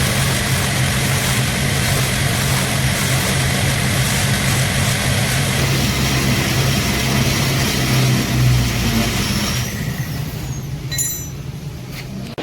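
Electric workshop power tool running with a steady motor hum and a loud hiss of abrasive work. The hiss drops away about ten seconds in, leaving the hum and a few brief high squeals before the sound cuts off.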